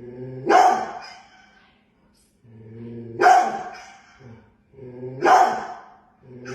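A dog barking: single loud barks about two seconds apart, each starting with a lower sound before the bark; a fourth begins near the end.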